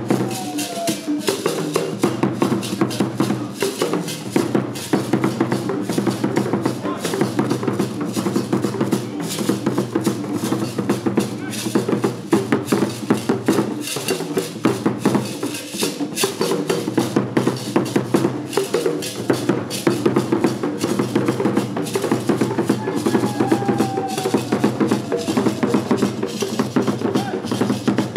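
Ghanaian traditional drum ensemble playing: large carved barrel drums struck with sticks in a fast, continuous interlocking rhythm, with a gourd rattle shaking over it.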